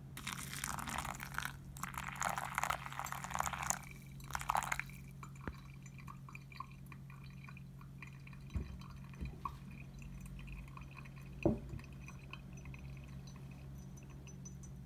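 Water poured onto coffee grounds in a paper filter in a ceramic pour-over dripper, in two pours with a short break between them over the first five seconds. Then faint bubbling and dripping as the wet grounds drain, with two soft knocks.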